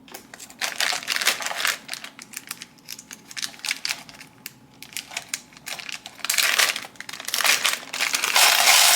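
Plastic bag crinkling and rustling as it is handled, with many small clicks; the rustling grows loudest near the end.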